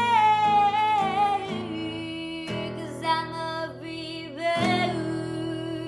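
A woman's sung note held and fading out in the first second and a half over a strummed acoustic string instrument. The instrument then plays on alone, with chords struck about two seconds apart and left to ring.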